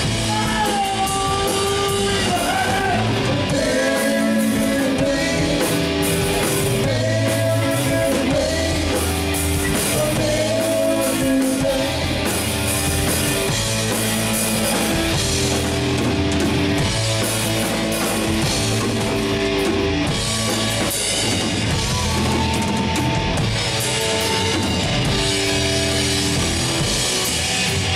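Live rock band playing: electric guitars, bass guitar and drum kit, continuous and loud.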